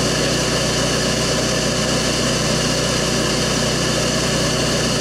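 Vacuum motor running steadily with an even, unbroken drone: the bee vacuum used to suck honeybees off the comb.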